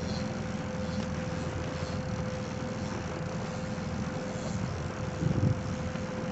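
Fishing boat's motor running steadily, a low rumble with a constant hum, while wind buffets the microphone. A brief louder knock comes about five seconds in.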